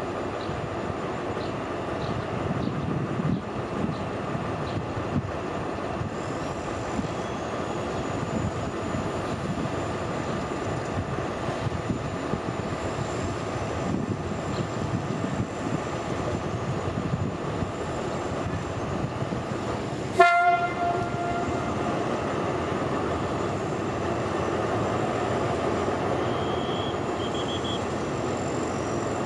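Distant diesel train running steadily, with one short horn blast about twenty seconds in.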